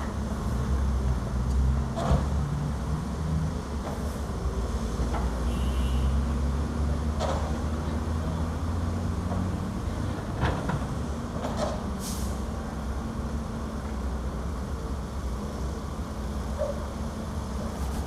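Diesel engines of an excavator and dump trucks running, the excavator's engine louder in the first several seconds as it works. Scattered knocks and clanks from the loading come through, and a short hiss sounds about twelve seconds in.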